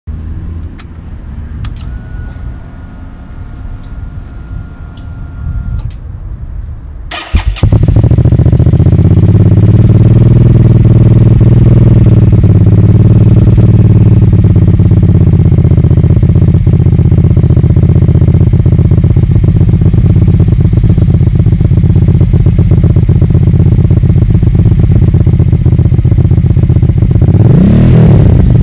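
Hyosung GV650 Aquila's V-twin engine, breathing through a custom exhaust built from a Honda CBR600 F3 silencer, starting about seven seconds in and then idling loud and steady. Near the end come a couple of quick revs.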